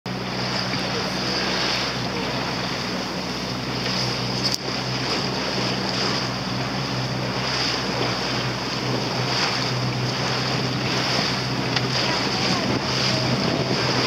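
Rigid inflatable boat under way, its outboard motor running with a steady hum, water rushing and splashing along the hull, and wind buffeting the microphone.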